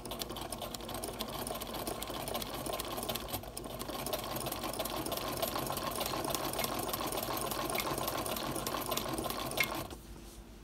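Sewing machine running steadily, zigzag-stitching through heavy welding-blanket fabric, stopping about ten seconds in.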